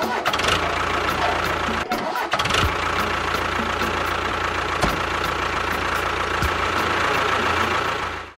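A motor running steadily with a constant whine, cutting off abruptly near the end.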